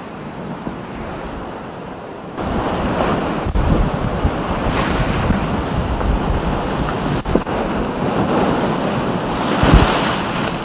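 Rushing water and wind as a Volvo Ocean 65 racing yacht drives hard through rough seas, with wind buffeting the microphone. The noise gets louder about two seconds in, and a burst of spray crashes over the deck near the end.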